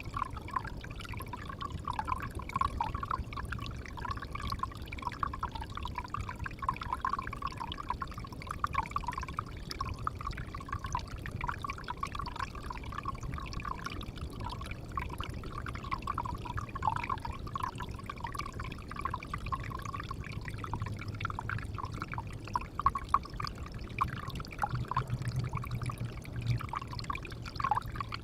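Water splashing steadily into a pond, a continuous running-water sound with no breaks.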